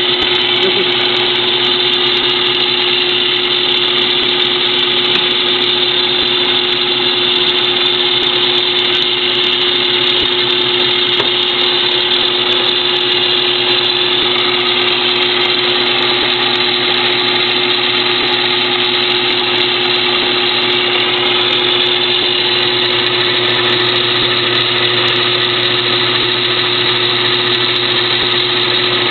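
Late-1930s Craftsman 109 series metal lathe running steadily under power, a continuous even hum with a strong steady tone.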